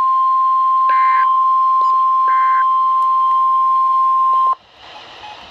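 NOAA Weather Radio warning alarm tone: a loud, steady single-pitch tone that cuts off abruptly about four and a half seconds in, leaving radio hiss. Two faint, short data-burst chirps sound under the tone, about a second in and again just past two seconds.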